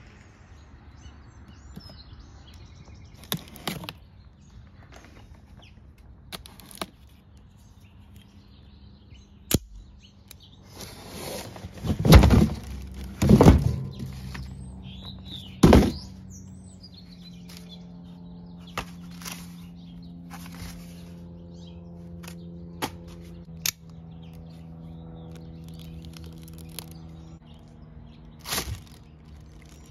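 A cardboard box being opened and unpacked by hand, with scattered sharp clicks, and a run of loud cardboard scrapes and rips about twelve to sixteen seconds in. Near the end comes the crinkle of a plastic bag around the DeWalt air inflator.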